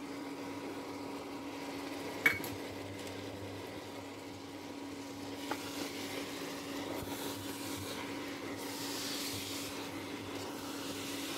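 Spoon stirring grated coconut into spices frying in a pressure cooker, with a faint sizzle and one sharp clink against the pot about two seconds in, over a steady hum.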